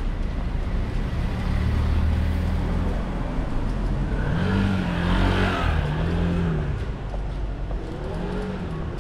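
Road traffic: a low steady rumble, with a vehicle passing about five seconds in, its engine and tyre noise rising and then fading.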